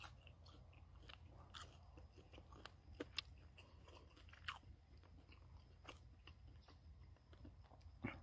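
A person chewing chicken with the mouth close to the microphone: faint, scattered soft clicks and smacks of eating, over a low steady rumble.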